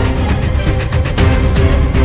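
Background music with heavy bass, drum hits and held notes.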